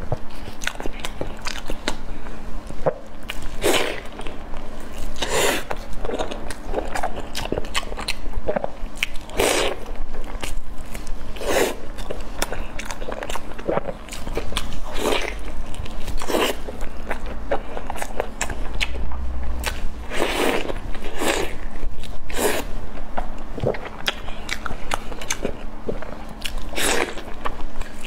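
Close-miked mukbang eating: bites, chewing and mouth sounds on soft, sauce-coated food, coming every second or two, over a faint steady hum.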